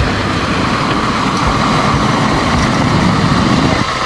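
Lada Niva 4x4 driving up on packed snow: engine running and studded tyres rolling over the snow, growing louder as it comes close, the low rumble dropping off near the end.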